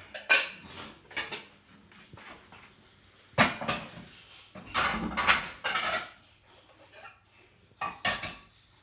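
Bowls clinking and clattering against each other and the dishwasher rack as they are taken out and stacked, in several separate clatters with quiet gaps between, the longest about halfway through.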